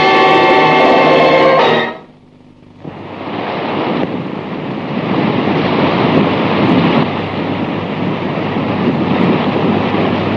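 Film score music ends about two seconds in. After a short gap a steady rushing seaside ambience of surf and wind rises and continues.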